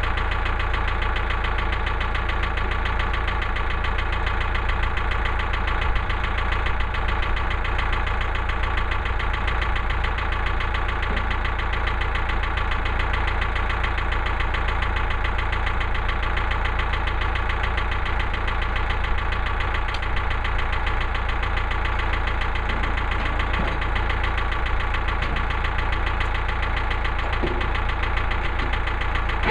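Engine of a Woodland Mills HM130MAX portable bandsaw mill running steadily.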